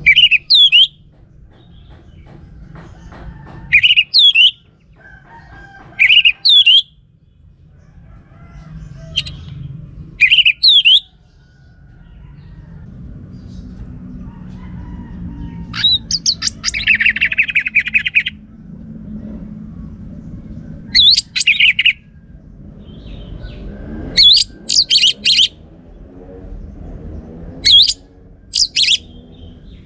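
Orange-headed thrush singing: short, loud whistled phrases every two to four seconds, with a longer buzzy trill about halfway through, over a faint low rumble.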